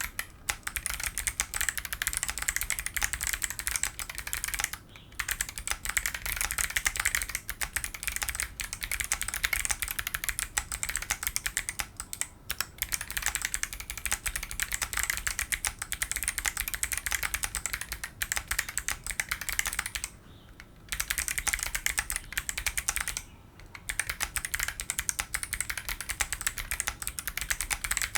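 Fast, continuous typing on a mechanical keyboard fitted with Kailh Bullet clicky switches in an aluminium plate with foam-filled case: dense crisp clicks from each keystroke, with short pauses about 5, 12, 20 and 23 seconds in.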